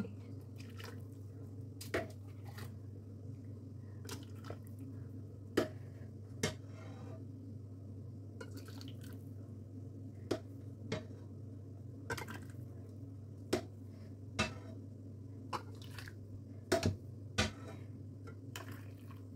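Hot pudding liquid being ladled into small dessert cups: pouring and dripping, with about ten irregular sharp knocks of the steel ladle against the cups and pan, over a steady low hum.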